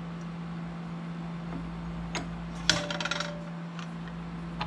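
Aluminum channel knocking against the milling machine's steel vise as it is shifted into position. There is a light tap about two seconds in, then a sharper clink with a short metallic ring, all over a steady low hum.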